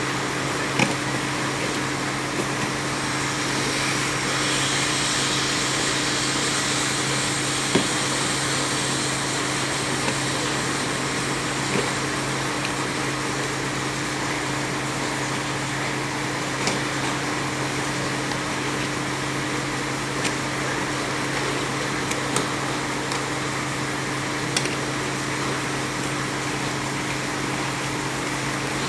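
A steady mechanical whir with a low hum, like a running fan or motor, a little brighter for several seconds early on, with scattered short clicks and taps over it.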